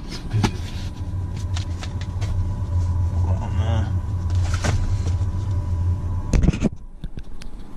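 Van engine idling with a steady low hum, which cuts out near the end, under scattered plastic clicks and knocks from a supplement tub and shaker being handled in the cab.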